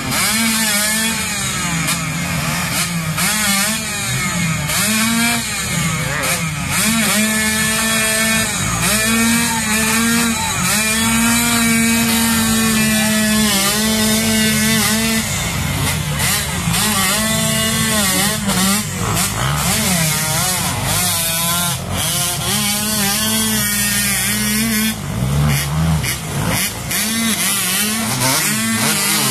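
Several off-road motorcycle engines revving hard and unevenly, the pitch rising and falling over and over with some stretches held at high revs, as the bikes bog down and spin their wheels in deep mud.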